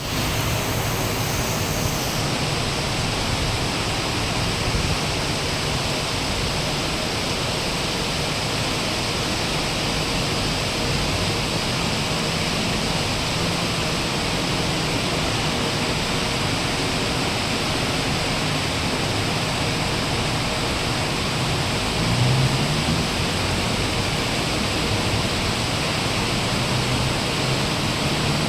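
Heavy rain pouring down in a steady, dense hiss, with a brief low rumble about three quarters of the way through.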